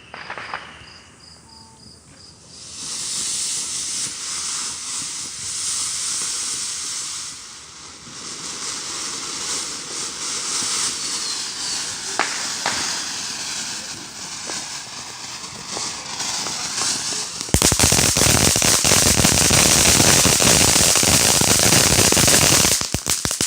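Firework going off: a steady spraying hiss with a few sharp cracks, then a much louder, dense crackling for the last five seconds or so that stops abruptly.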